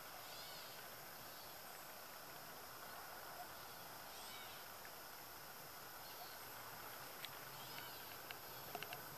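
Faint outdoor ambience with three short, arched bird chirps spread a few seconds apart and a few faint ticks near the end.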